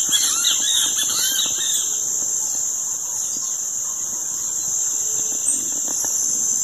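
A steady high-pitched insect drone, with small songbirds chirping over it during the first two seconds.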